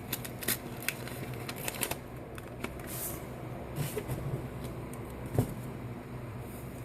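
Paper rustling and crinkling as a folded note is handled and opened, with scattered sharp clicks and a louder knock near the end, over a steady low hum.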